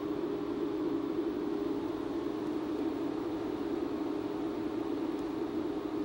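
Steady mechanical hum of a few close tones over a faint hiss.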